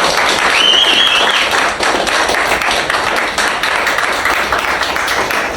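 A group of people clapping and applauding, a dense patter of many hand claps, with a brief high whistle-like tone about half a second in.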